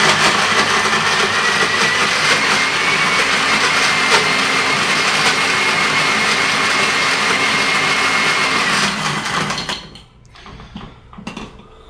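Countertop blender running, blending ice and diced mango, with a steady high whine over the churning. It cuts off near the end.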